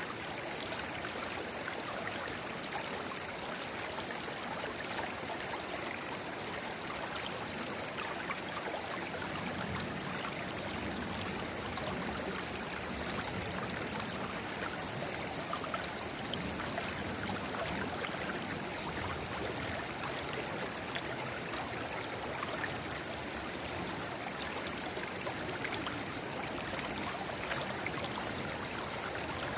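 River babbling steadily where a narrow spring-fed stream pours into it.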